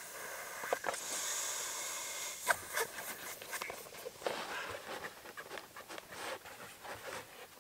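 Breath blown by mouth into the valve of a Therm-a-Rest NeoAir inflatable sleeping pad, a breathy hiss for about the first two seconds as the pad is topped up. After that, scattered clicks and crinkly rustles of the pad being handled.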